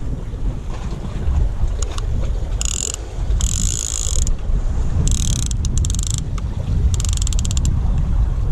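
Fishing reel being cranked in five short bursts, its gears and ratchet giving a rapid clicking buzz as it takes up line. A steady low wind rumble on the microphone runs underneath.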